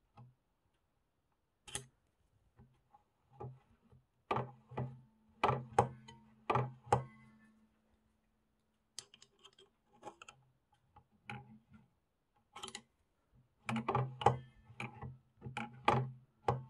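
Zigzag mechanism of a vintage Necchi Lycia sewing machine, its metal linkages clicking and knocking as it is worked. The sharp, irregular clicks come in two runs, a few seconds in and again toward the end, with a faint low hum under the louder stretches.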